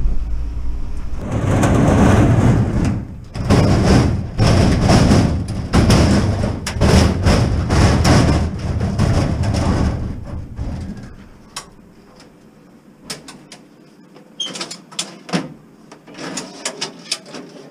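Metal hand truck rattling loudly as it is wheeled over rough, cracked asphalt. About two-thirds of the way through the rattle stops, and a steel filing cabinet gives scattered clicks and knocks as it is handled.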